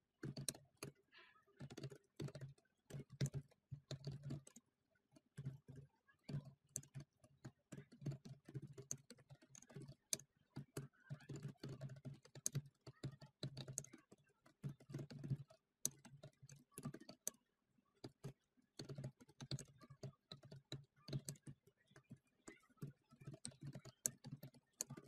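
Faint computer keyboard typing: runs of quick keystrokes with short pauses between them.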